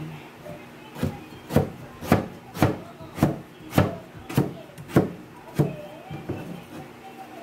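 Kitchen knife slicing a raw peeled sweet potato into thin rounds on a cutting board: about nine even chops, roughly two a second, each stroke knocking the board, getting weaker near the end.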